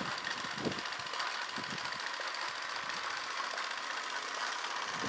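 Miniature live-steam traction engine with a gas burner (Mercer type 2) running: a steady hiss with a fast, even patter of exhaust beats.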